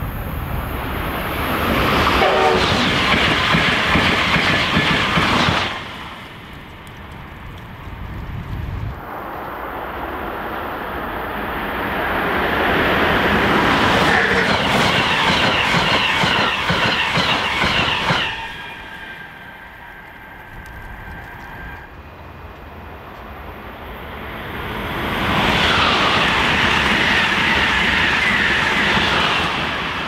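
Passenger trains passing through a station at speed, their wheels clattering on the rails. The sound comes in three loud passes broken by abrupt cuts.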